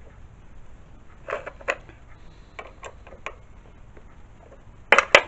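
Light clicks and knocks of metal tools being handled at a machine as a 2.5 mm drill is set up, with two sharp, louder clicks near the end.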